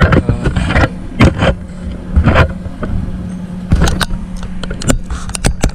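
Steady hum of a switched-on MIG welder under a string of irregular, sharp metallic clacks and short noisy bursts from work at the welding bench.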